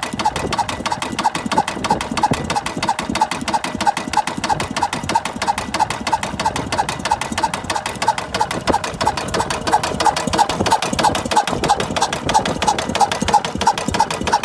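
Robson 5 hp Fairbanks Morse single-cylinder stationary diesel oil engine running steadily, with a fast, even beat of firing strokes and valve-gear clatter.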